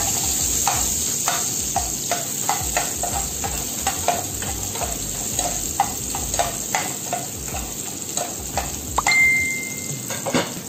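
Garlic, ginger and chili sizzling in hot oil in a frying pan. A spatula stirs them, scraping and tapping the pan in a quick, uneven series of clicks. Near the end there is a short ringing ping, held for about a second.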